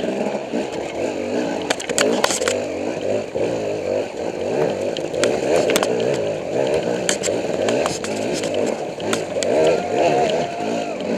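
Dirt bike engine revving up and down in quick bursts as the bike pushes through deep water on a flooded trail, with sharp knocks and splashes. Near the end the engine holds a higher, steadier pitch for about a second.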